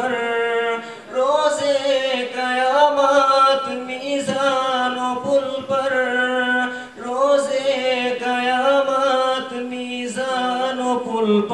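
A young man singing an Urdu ghazal unaccompanied into a microphone, in long ornamented phrases with short breaths between them.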